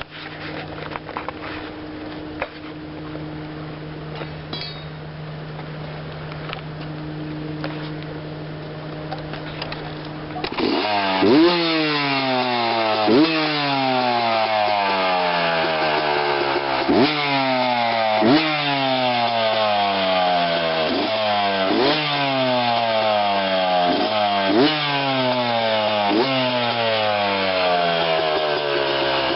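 Yamaha YZ dirt bike engine idling steadily. From about ten seconds in, the throttle is blipped over and over, roughly once a second: each rev rises sharply and falls back toward idle.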